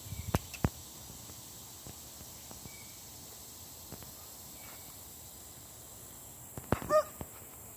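Insects droning steadily in the background, with a few sharp clicks in the first second and a short, high-pitched cry about seven seconds in.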